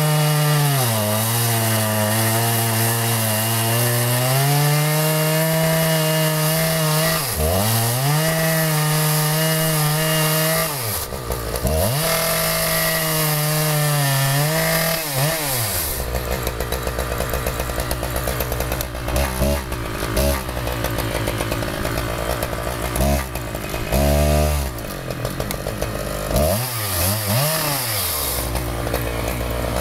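Chainsaw engine running at high revs while milling through a maple log, its pitch sagging under load and recovering several times. About halfway through it drops to a low idle, with a few short throttle blips.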